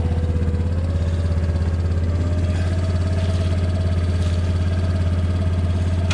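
Single-cylinder engine of a 2007 Yamaha Kodiak 350 ATV idling steadily.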